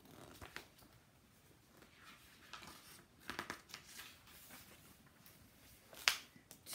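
Faint rustling and crinkling of paper as picture-book pages are handled and turned, with a sharper rustle about six seconds in.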